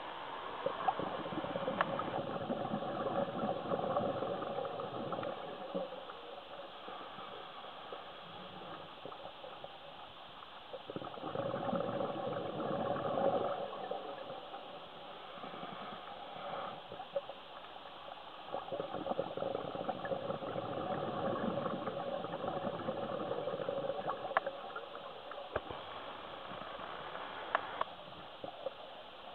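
Scuba regulator breathing underwater: exhaled bubbles gurgling in long stretches that come and go every several seconds, with a quieter hiss between them and a few sharp clicks.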